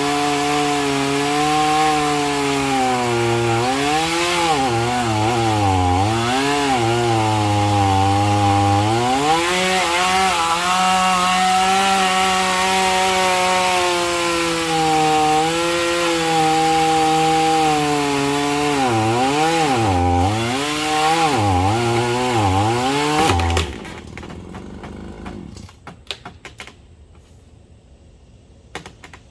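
Two-stroke chainsaw cutting into the root ball of an uprooted oak, its engine pitch dipping again and again as the chain bogs in the cut and then recovering. Near the end the saw stops, leaving a few faint clicks.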